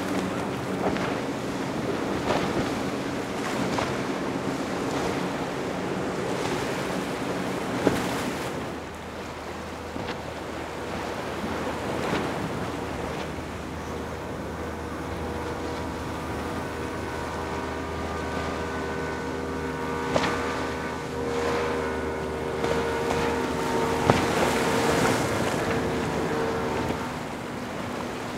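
Powerboat engines running at speed as boats pass one after another, over rushing water and wind buffeting the microphone. A steady engine drone comes in about halfway through and fades near the end, with a few sharp thumps.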